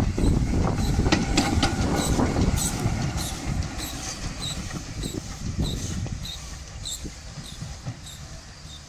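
1916 Hudswell Clarke saddle-tank steam locomotive running past and away along the track, its rumble fading steadily, with regular light clicks about twice a second from the wheels on the rails.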